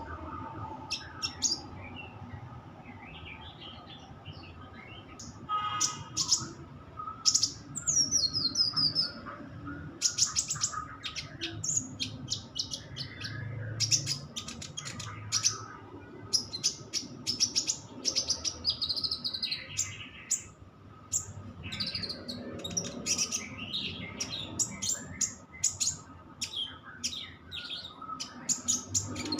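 Small songbird singing rapid bursts of sharp chirps and short trills, with a few quick falling whistles, in fast shot-like phrases.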